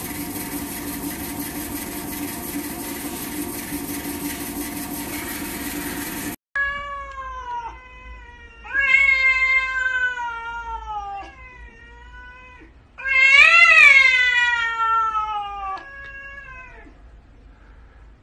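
A robot vacuum running with a steady hum for about six seconds, then a cat yowling: about five long, drawn-out calls that waver and fall in pitch, the loudest about two-thirds of the way through.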